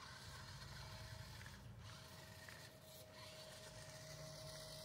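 Near silence: faint outdoor background with a faint, steady high hum that starts about a second in.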